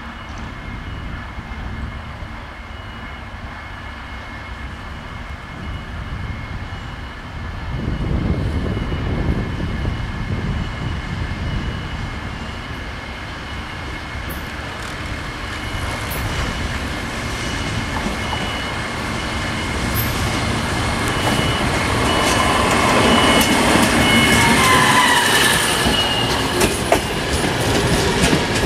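Red diesel multiple unit approaching and passing close by: the diesel rumble grows louder as it nears, and a whine drops in pitch as it draws level. Near the end the wheels click over the rail joints.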